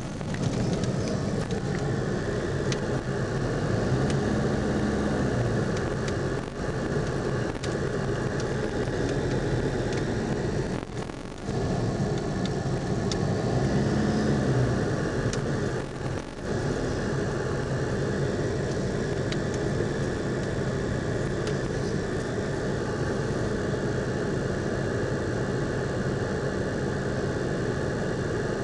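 Car engine and road noise heard from inside the cabin of a moving car, a steady hum with noise over it that drops briefly twice, about eleven and sixteen seconds in.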